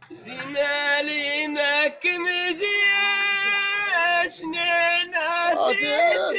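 A man singing an Amazigh ahwash solo line in long, high held notes that waver slightly and break off about every two seconds, sung with a frame drum held up against his mouth; no drumming is heard.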